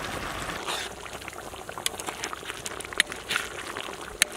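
Fish curry bubbling as it simmers in a large wok, with scattered sharp pops. Near the end a metal ladle stirs it, with one loud click.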